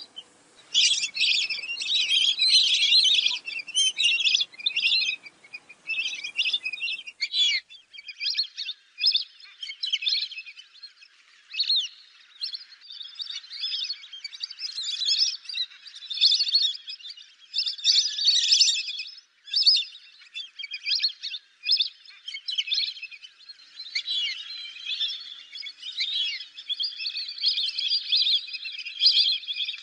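A flock of fulvous whistling ducks calling, with many high whistled calls overlapping almost without a break.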